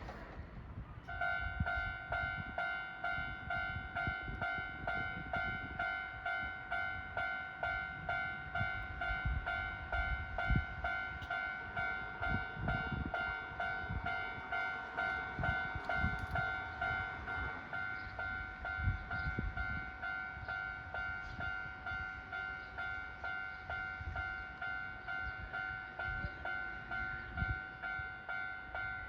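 Japanese level-crossing warning alarm starting about a second in and ringing on in rapid, evenly repeated electronic dings, the signal that a train is approaching. An uneven low rumble runs underneath.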